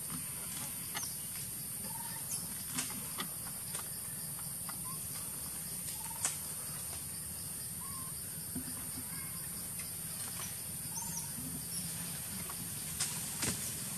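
Forest ambience: a steady high-pitched insect drone, with short chirping calls every second or two and scattered sharp clicks and twig snaps.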